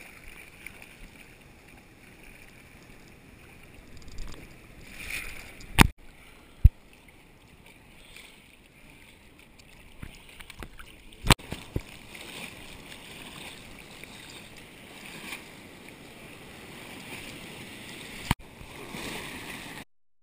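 Sea water sloshing and splashing around a camera held at the surface, with a few sharp knocks as water or hands hit it. The sound cuts off suddenly near the end.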